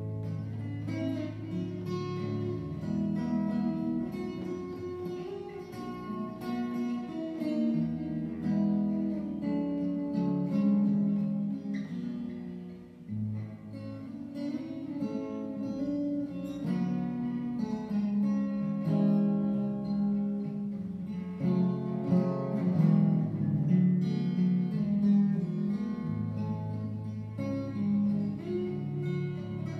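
Cutaway acoustic guitar played solo as an instrumental tune, a picked melody over low bass notes.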